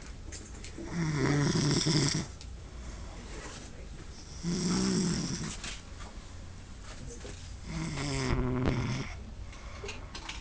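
A man snoring: three snores, each lasting about a second, coming about every three and a half seconds.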